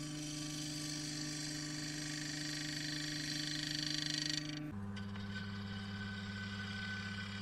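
Record Power DML305 wood lathe running with a steady motor hum while a turning tool cuts the spinning cherry bowl blank, the scraping hiss of the cut growing louder. A little over halfway in, the sound switches abruptly to a lower-pitched hum with little cutting noise.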